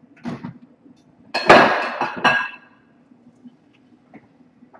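Kitchen cookware clattering against a counter as a pan is fetched and set down: a soft knock, then about a second in a loud clinking clatter lasting about a second.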